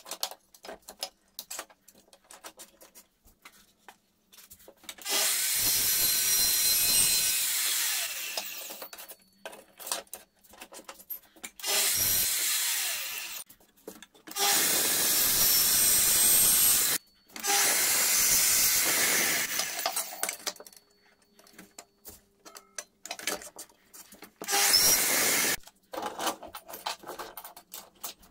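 Bosch GCD 12 JL cold-cut metal saw cutting 6 mm aluminium sheet in five runs of one to three seconds each. Between the cuts come scattered clicks and knocks as the sheet is handled.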